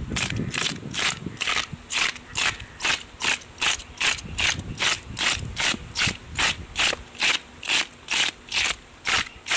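Toothed fish scaler raking the scales off a large whole fish in quick, regular strokes, a little over two a second, each stroke a short rasping scrape.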